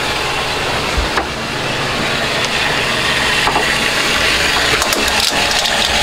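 Steady machinery hum and hiss from the boat's running equipment, with a low thump about a second in and a few light knocks near the end as someone climbs down into a hatch compartment.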